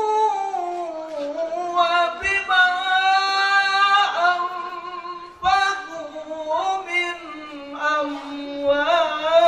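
A man's voice reciting the Qur'an in melodic tilawah style, amplified through a handheld microphone. He holds long, ornamented notes in two drawn-out phrases, with a breath about five seconds in.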